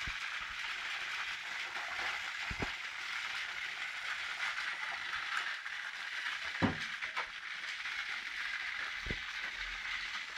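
Several motorized toy trains running on plastic track: the steady high whirring rattle of their small motors and wheels, with a few sharp clicks scattered through.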